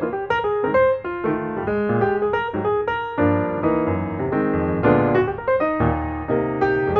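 Background piano music: a steady stream of notes over chords and a low bass line.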